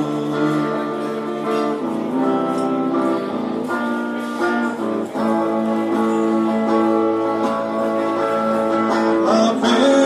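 Live acoustic guitar with a second instrument carrying a melody of long held notes, an instrumental break with no singing.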